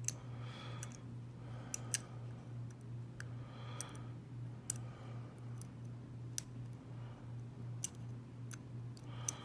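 Dimple pick working the pins of a Keyways dimple lock cylinder under tension: small, sharp metallic clicks at irregular intervals, roughly one every second or so.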